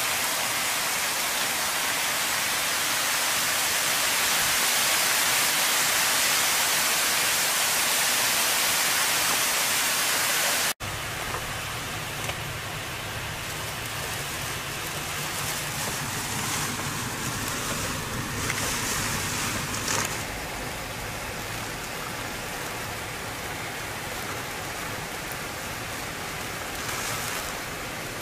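Heavy hurricane rain pouring down, a loud steady hiss. About ten seconds in it cuts sharply to a quieter downpour with a low rumble underneath, which swells a few times.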